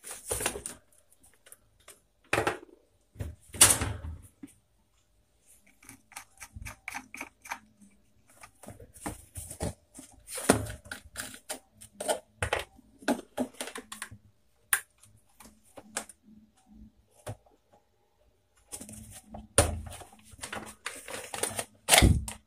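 Irregular clicks, taps and knocks of plastic and metal pedestal fan parts being handled and unscrewed as the fan is taken apart, with a few louder knocks among the small clicks.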